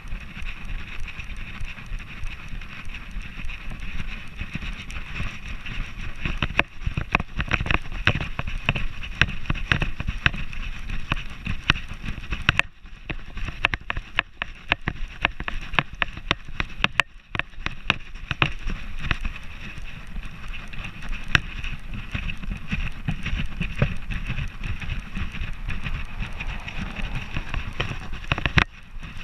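Harness-mounted camera on a trotting border collie's back, knocking and rattling with every stride over a low wind rumble on the microphone.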